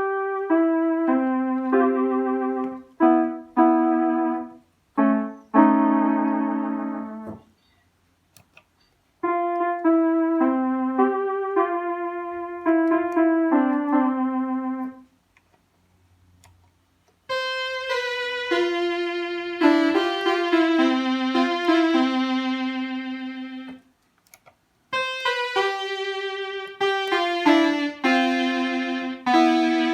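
1975 Baldwin Fun Machine 121 home organ playing short melodic phrases on its right-hand voices, in four runs separated by brief pauses. The third run has a noticeably brighter tone.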